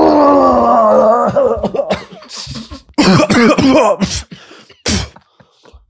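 A man retching and gagging. A long, loud heave falls in pitch over the first second and a half, then comes a run of shorter gags, groans and coughs.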